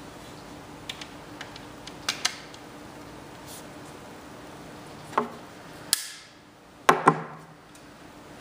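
Metal hanging-file bar rails clicking and knocking together as they are handled and fitted. There are a few light clicks early, then louder clanks with a brief metallic ring, the loudest a double knock near the end.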